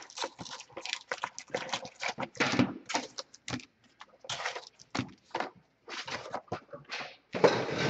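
A cardboard hockey card box and its foil packs being handled on a desk: the box sleeve slid off, packs pulled out and stacked, giving irregular rustling, scraping and light taps, loudest near the end.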